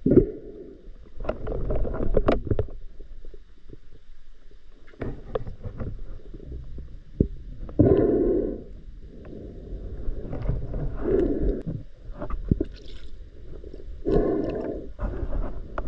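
Muffled water noise heard underwater through a waterproof camera housing: gurgling and rushing water in uneven surges every second or two as a spearfisherman swims, with a few small knocks.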